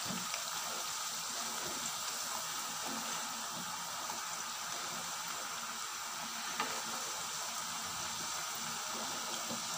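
Urad-dal and dill fritters (garelu) deep-frying in hot oil in an iron kadai: a steady sizzle, with a slotted spoon now and then stirring and turning them, and one small clink about six and a half seconds in.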